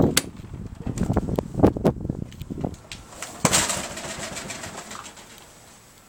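Handling noise from a handheld camera being carried: irregular knocks and clicks, then a sharp knock about three and a half seconds in followed by a hiss that fades out.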